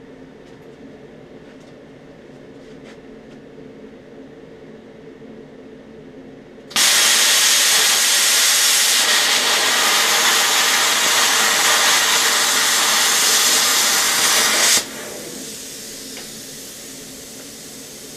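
Harbor Freight plasma cutter firing on a 3/4-inch block of 6061 aluminum: about seven seconds in, a loud, steady hiss of the arc and air starts abruptly and runs about eight seconds, then drops suddenly to a quieter air hiss as the arc goes out. The block is too thick for this cutter.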